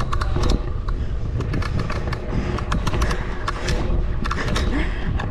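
Wind buffeting the microphone, a loud steady low rumble, with scattered sharp clicks and taps.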